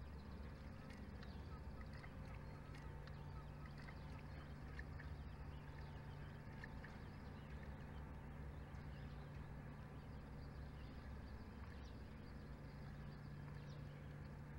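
Faint outdoor ambience from a wildlife camera's microphone: a steady low hum under a soft noise haze, with a few faint short high chirps from distant birds.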